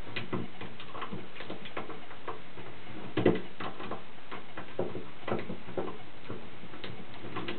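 Irregular small clicks and ticks of a hand screwdriver and door lock hardware as the lock set's screws are undone by hand, with one louder knock about three seconds in.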